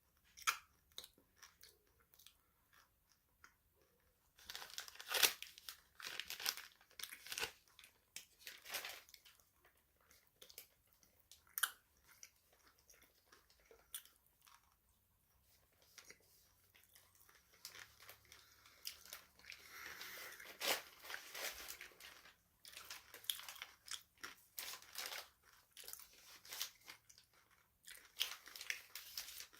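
Close-miked chewing of crunchy food: crisp, irregular crunches in clusters. The crunches are thickest from about four seconds in and again over the last third, with quieter stretches between.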